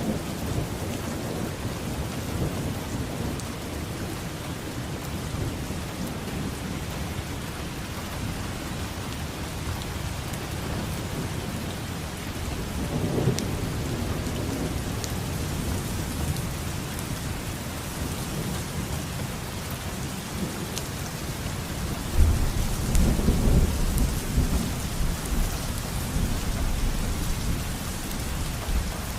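Steady rain falling on a surface with thunder rumbling in a thunderstorm: one rumble swells about halfway through, and a louder, deeper roll comes about two-thirds of the way in and lasts a few seconds.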